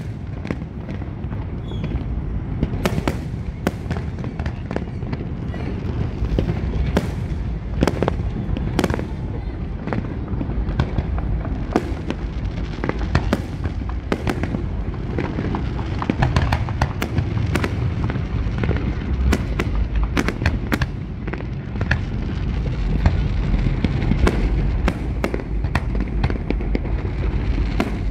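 Fireworks display: many sharp bangs from bursting aerial shells in rapid, overlapping succession over a continuous low rumble.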